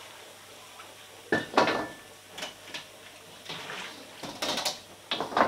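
A wok and metal ladle handled on a wok range: a series of sharp metal clanks and scrapes as the wok is set down on the burner ring. The loudest clanks come about a second and a half in and just before the end.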